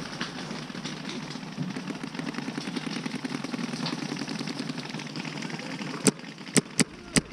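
Paintball markers firing: a steady rattle of rapid fire from further off, then four sharp, close shots in quick succession near the end.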